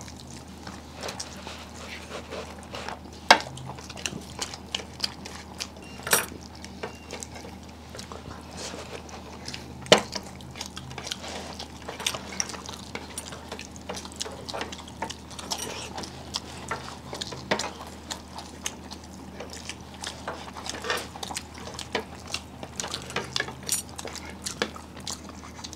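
Eating at a table: wet chewing and mouth sounds, with many small clicks of plates and dishes. A few sharper knocks come about 3, 6 and 10 seconds in.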